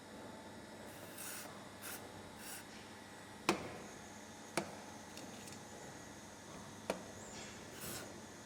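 Hands-on mold cleaning work: a few brief hissing strokes and three sharp clicks, the loudest about three and a half seconds in.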